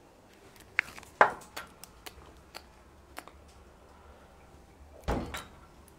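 A handful of scattered sharp clicks and taps, the loudest a bit over a second in, then a duller thump about five seconds in.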